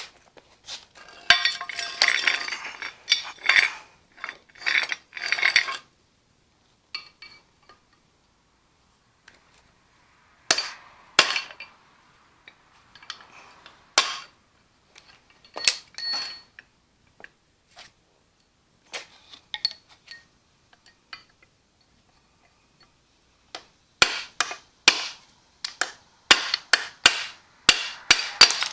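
Metal hand tools clinking and knocking against steel suspension parts while a stuck rear hub or wishbone part is worked loose. The sounds come in scattered bursts with quiet gaps: a few sharp strikes in the middle and a quick run of them near the end.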